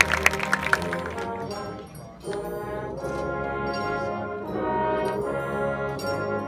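Marching band brass playing slow, held chords, with applause from the stands dying away in the first second. The music thins out briefly near two seconds, then the brass comes back in on a new chord.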